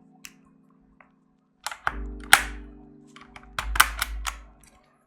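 Keycaps being pried off a Redragon Fizz K617 mechanical keyboard with its keycap puller: a series of sharp snaps as the caps come free, the loudest a little after two seconds in, each followed by a short ringing hum from the keyboard's plate and springs.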